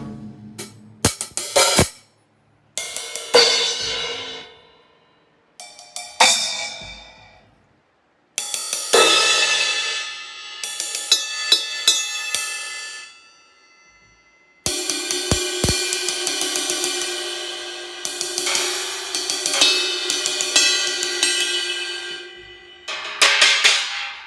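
Drum-kit cymbals sound-checked: a few single cymbal strikes in the first few seconds, each left to ring and fade, then two long stretches of rapid cymbal playing that build into a continuous ringing wash. Sharp drum hits come back near the end.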